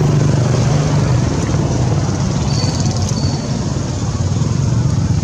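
Steady low drone of a running motor engine with a hiss over it. Two brief faint high tones about halfway through.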